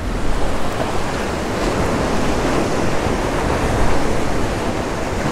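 Steady rushing wash of sea waves, mixed with wind buffeting the microphone.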